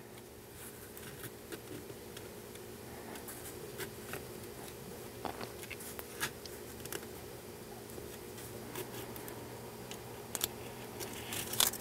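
Faint scratching and small clicks of fingers working textured adhesive grip tape onto a Glock's polymer pistol frame, over a steady low hum.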